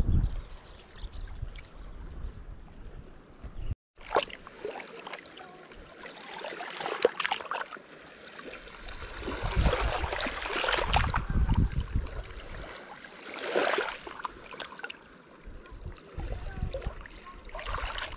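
Running water, uneven and noisy, with a brief dropout to silence just before four seconds in.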